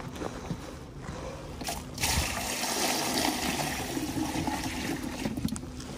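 Water poured from a plastic bucket into a plastic cooler box: a steady splashing pour that starts suddenly about two seconds in and tails off near the end.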